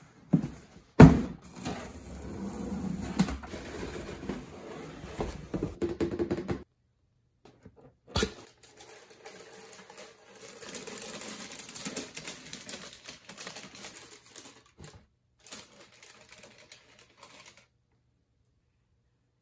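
Cardboard shoebox being handled and opened, with tissue paper crinkling and rustling as hands unwrap a pair of Crocs clogs. A sharp knock of the box about a second in and another about eight seconds in, the rustling stopping briefly in between.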